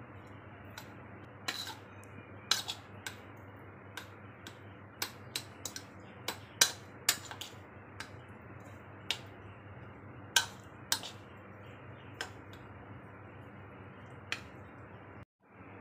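Steel spoon clicking and tapping against a bowl at irregular intervals while stirring boiled sweet corn kernels with butter, over a faint steady hum.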